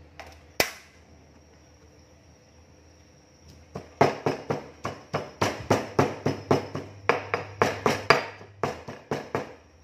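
Stone mortar and pestle pounding: a fast run of about twenty sharp strikes, roughly four a second, starting about four seconds in, with a short break near the end. A single sharp knock comes just before that, soon after the start.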